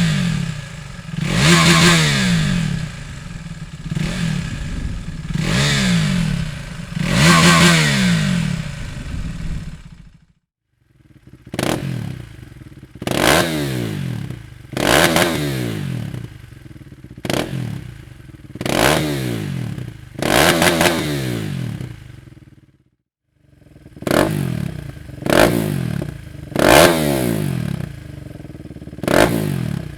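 KTM 390 Adventure's single-cylinder engine revved repeatedly through a Dominator aftermarket exhaust, a short rising blip every second or two. Twice the sound drops out briefly to silence before the revving picks up again.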